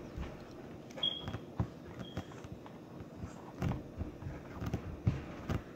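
Hands handling and stretching sticky fruit-snack slime, with soft, irregular taps and clicks. Two brief high squeaks come about one and two seconds in.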